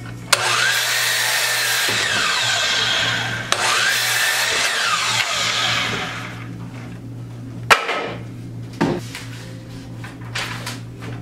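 DeWalt sliding miter saw making two crosscuts through a wooden board, each about three seconds long, the motor's whine rising as it spins up and falling as it winds down. Then a sharp knock and a few lighter knocks as the cut wood is handled.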